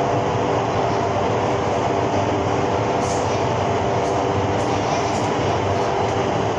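Indoor skydiving wind tunnel running: a loud, steady rush of air with a few steady hum tones over it.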